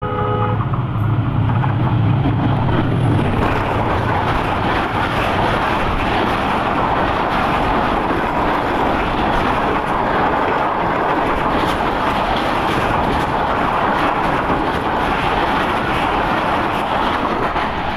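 Pakistan Railways Khyber Mail passenger train passing close by. The diesel locomotive's engine is heard in the first few seconds, then a steady loud rush of wheel and rail noise as the coaches roll past.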